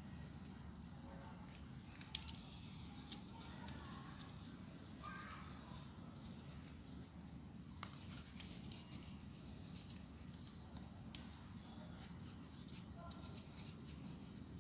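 Folded paper units of a 3D origami model crackling and rustling as fingers press and handle them: a scattered run of small crisp ticks, two of them sharper, about 2 and 11 seconds in. A steady low hum lies underneath.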